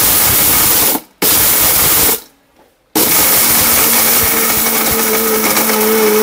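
Orpat electric mixer grinder running with stones in its jar, a loud grinding rush. It is switched on in two short pulses about a second each, stops briefly, then runs steadily from about three seconds in, with a hum coming up under the noise. It is crushing the stones to powder.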